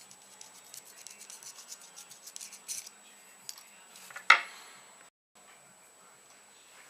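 Small scratching and rubbing sounds of hands working a small object, then one sharp, loud pop with a short hiss after it about four seconds in.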